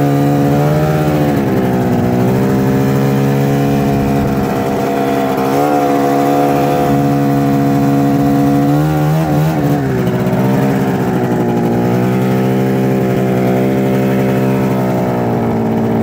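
Arctic Cat ZR snowmobile's two-stroke engine running under way, its pitch rising and easing with the throttle. Engine speed dips briefly and climbs back about nine seconds in, then falls off near the end.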